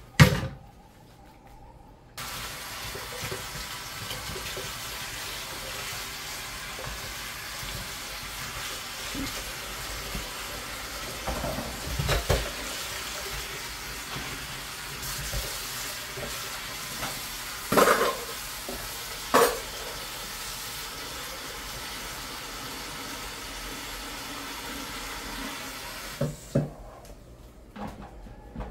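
Kitchen tap running into a bowl in a stainless-steel sink, turned on about two seconds in and off near the end. A few knocks and clatters of bowls and dishes in the sink come over the running water.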